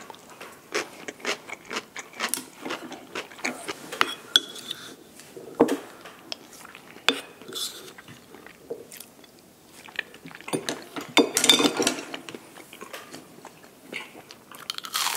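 Eating sounds: biting and chewing food, with chopsticks and cutlery clicking against dishes now and then. A louder, busier stretch of clatter and chewing comes about eleven seconds in.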